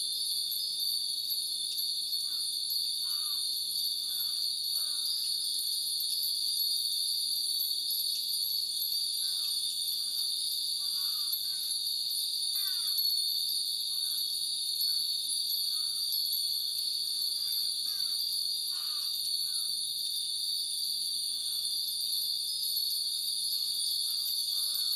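Many hanging furin (Japanese wind bells) tinkling in the breeze over a steady, high insect drone typical of summer cicadas, with short falling chirps scattered throughout.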